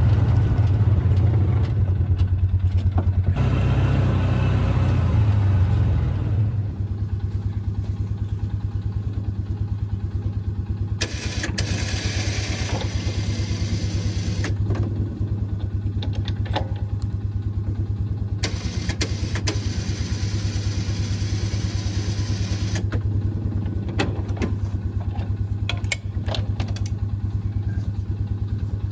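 Side-by-side UTV engine running as it is driven, louder for about the first six seconds and then a steady lower drone. Two stretches of hissing noise come in over it partway through, and short knocks and rattles sound now and then near the end.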